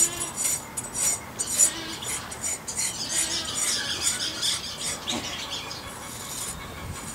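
Quick runs of short scraping strokes, some of them squeaky, against the hide of a hanging feral hog carcass.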